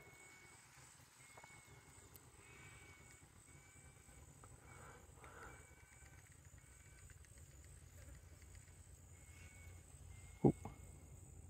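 Faint outdoor ambience with distant birds calling in short repeated notes, over a steady high hiss. A single sharp click sounds near the end.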